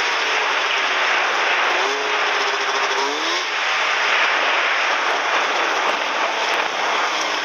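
Snowmobile riding along a snowy trail: its engine runs steadily under a dense rush of track and wind noise, and the engine note rises briefly about three seconds in as the throttle is opened.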